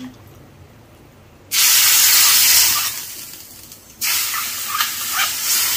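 Hot oily tempering pan sizzling as buttermilk meets it, in two loud hissing bursts: one begins about a second and a half in and fades, the second starts suddenly about four seconds in.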